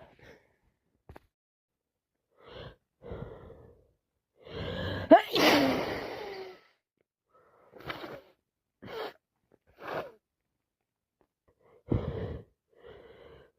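A person with a cold sneezing. A few short, catching breaths build up to one loud sneeze about five seconds in, with a voiced tail. Several short breath sounds follow.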